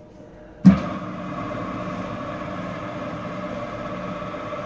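A bakery spiral dough mixer switches on with a sharp thump about half a second in, then runs steadily at first speed, its motor humming as the hook starts kneading flour, eggs and liquid levain into croissant dough.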